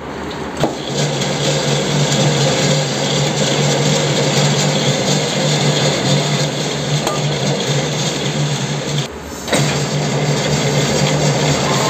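Metal lathe running, with a single-point tool cutting a 2 mm pitch V thread on a hydraulic cylinder shaft: a steady machine hum under a continuous noisy cutting sound, briefly dropping about nine seconds in.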